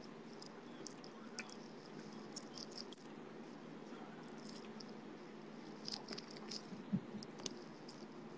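Faint room noise: a steady low hum with scattered light clicks and rustles, and a soft thump about seven seconds in.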